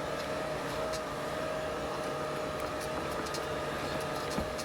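Steady mechanical hum with a constant whine, and a few faint ticks.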